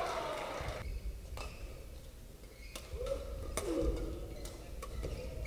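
Badminton doubles rally on an indoor court: a few sharp racket hits on the shuttlecock, with short squeaks from players' shoes on the court floor.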